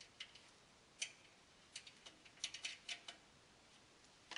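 Faint, irregular small metal clicks and ticks from a 1/4-inch nut being threaded by hand onto a panhead bolt through a steel stand leg.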